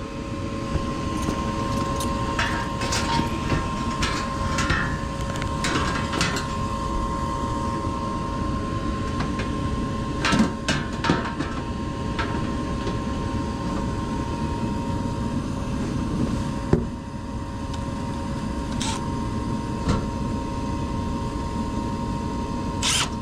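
Steady hum of a running heating unit with two constant tones, overlaid by scattered clicks and knocks of its sheet-metal access panels being handled and refitted as the unit is closed up.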